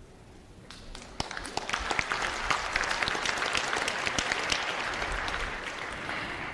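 Audience applauding, with many hand claps, starting about a second in and tapering off toward the end.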